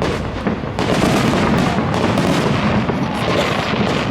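Fireworks going off in a dense, continuous volley of bangs and crackles.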